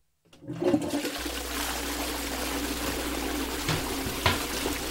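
Dual-flush toilet doing a full flush: water starts rushing about half a second in and runs on steadily. Two short knocks sound near the end.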